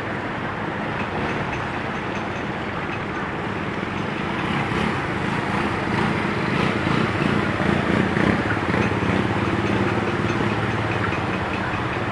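A motor engine running amid steady street noise, louder for a few seconds in the middle as it seems to come closer.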